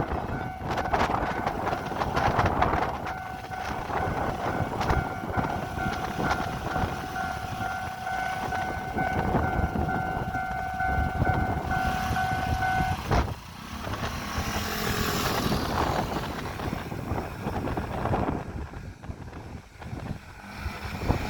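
A train passes over the level crossing with dense wheel clatter and a rush of air. Over it, the crossing's warning bell rings in a steady tone that stops about two-thirds of the way through.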